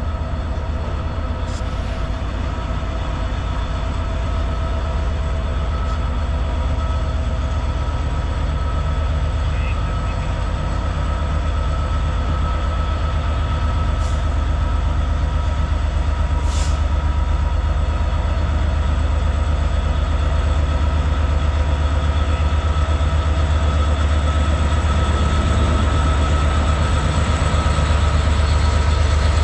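Diesel freight locomotive engine running steadily close by with a deep, even hum, slowly getting louder. A few short clicks sound over it.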